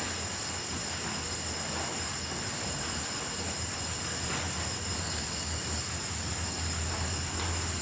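Night chorus of crickets: a continuous high-pitched trilling that holds steady, over a low steady hum.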